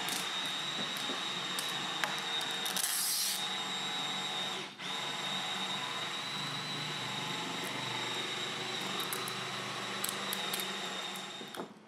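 A shop machine's motor running steadily with a constant high whine over a hum, and a brief louder hiss about three seconds in.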